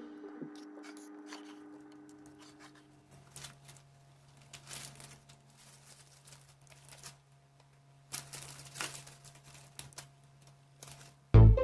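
Faint plastic wrapper crinkling and light taps as ladyfingers are taken from their bag and laid in a glass baking dish, over a low steady hum. Background music fades out at the start and comes back in loudly near the end.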